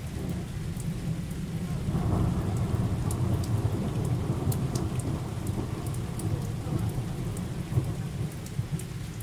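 Thunder rumbling, swelling about two seconds in and slowly easing off, with rain falling and scattered drops ticking close by.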